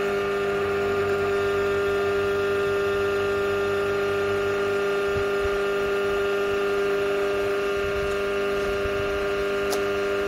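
Electric drill motor running at a steady speed: a steady hum with a strong low tone and many overtones, switching on abruptly.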